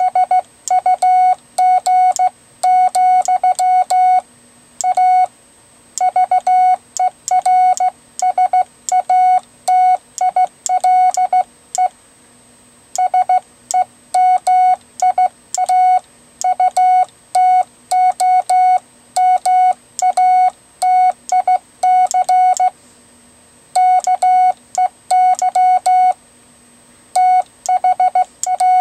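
Morse code sidetone keyed by hand on a GoBug semiautomatic bug key: a single mid-pitched beep switched on and off in quick dots and dashes, with short pauses between words. It spells out plain text, 'here is GoBug… (vers)atile semiautomatic key that…'.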